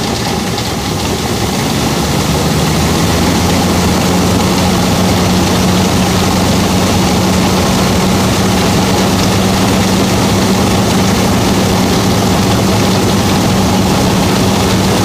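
Sonalika 750 III tractor and its mini combine harvester running steadily under load while the unloading auger discharges grain. A loud, even engine-and-machinery drone with a hum that rises slightly in pitch over the first couple of seconds and then holds.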